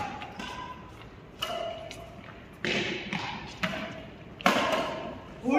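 Badminton racquets striking a shuttlecock back and forth in a doubles rally: four sharp hits about a second apart, echoing in the hall.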